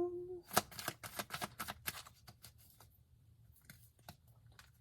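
A deck of tarot cards being shuffled by hand: a quick run of papery flicks and slaps, densest in the first two seconds, then thinning out to a few faint taps.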